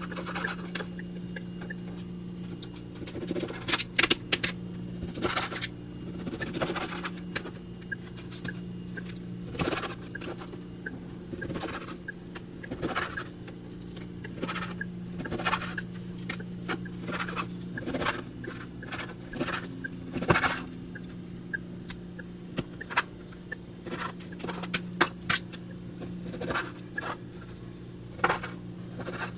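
Knife cutting raw chicken breast into pieces, the blade tapping on the board underneath at an irregular pace, over a steady low hum.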